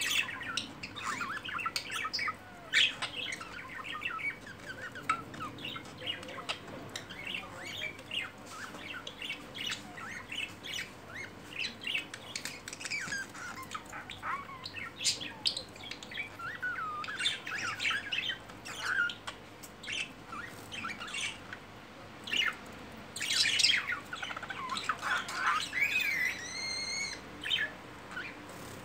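Budgerigars chirping and chattering without a break while courting and mating, many short chirps with a louder run of squawks near the end and a sliding whistle just after it.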